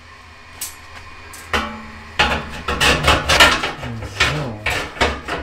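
Chrome wire grill grate clinking and clattering against the steel drum and rib rack of an ugly drum smoker as it is handled and lowered into place. A quick run of metallic clicks starts about a second and a half in, densest in the middle.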